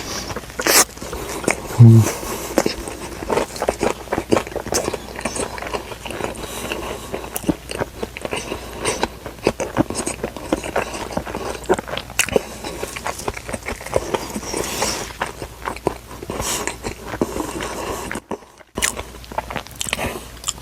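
Close-miked eating of fast food: a steady run of crunchy bites and chewing. A short low thump about two seconds in is the loudest sound.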